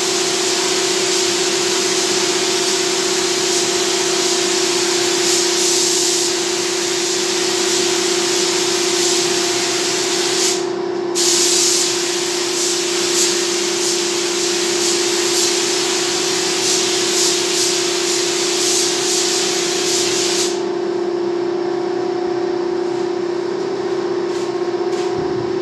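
Paint spray gun hissing as compressed air sprays dark brown paint onto carved CNC wood, cut off briefly about ten seconds in and released about twenty seconds in. A steady mechanical hum runs underneath throughout.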